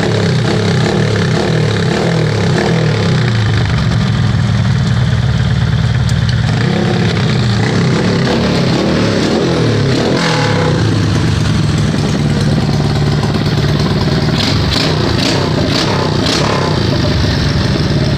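Small motorcycle engine with a 57mm big-bore block and an ORBR 'chicken pipe' exhaust, running loudly and being revved up and down several times. A quick series of sharp cracks comes about three-quarters of the way through.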